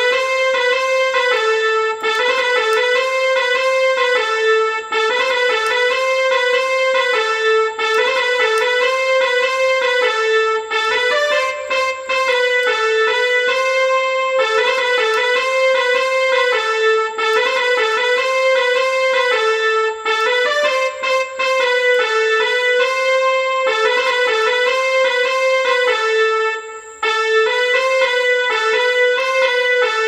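Yamaha PSR-F50 electronic keyboard playing a musical bus-horn melody: one sustained tone stepping back and forth between two close notes in a repeating pattern, with short breaks between phrases and a brief pause about three-quarters of the way in.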